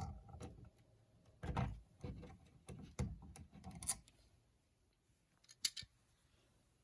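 Scattered clicks, taps and scrapes of hand tools and outlet parts being handled while working on an opened wall power outlet, a handful of short sounds about a second apart.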